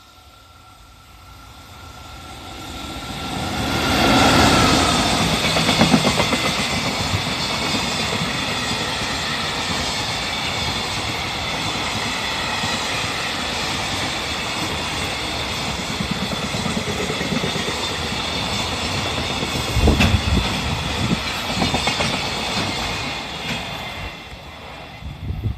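Freight train hauled by an EF65 electric locomotive passing close by. It builds up to the loudest point about four seconds in as the locomotive goes past. A long steady run of freight wagons follows, their wheels clattering over the rail joints, and it tails off near the end.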